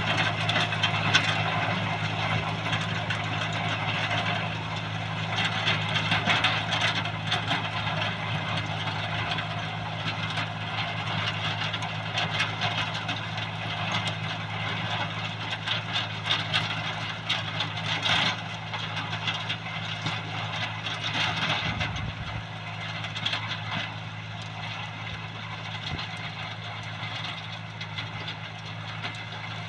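A heavy machine's diesel engine running steadily at a constant speed, with rattling mechanical noise over it.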